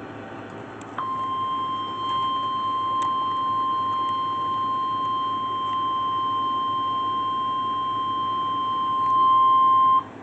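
Emergency Alert System weather alert tone, the NWS 1050 Hz warning tone, on an FM radio broadcast. It is one steady high beep that starts about a second in, holds for about nine seconds, gets louder near the end and cuts off suddenly. It signals a weather warning about to be read.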